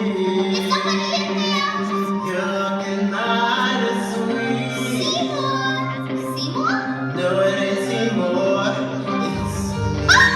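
A woman singing a musical-theatre song over instrumental accompaniment, with long held notes. The bass moves down a step about four seconds in and again near the end.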